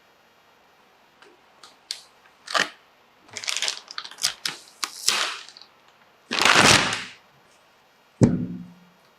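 Graphics card packaging being handled during unboxing: a string of clicks and short rustles, a longer loud rasp of packaging material about six and a half seconds in, and a sharp knock with a short low ring near the end.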